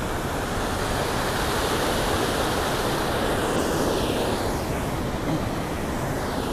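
Steady rushing roar of river water pouring over a concrete weir close by.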